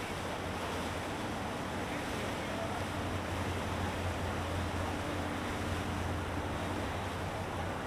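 Sea Ray cabin cruiser's engines running at low speed as it passes, a steady low drone over water wash and wind on the microphone.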